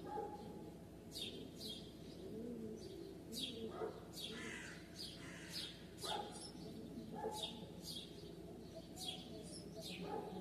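Small birds chirping: many short, quick chirps that fall in pitch, coming at irregular intervals, over a steady low background hum.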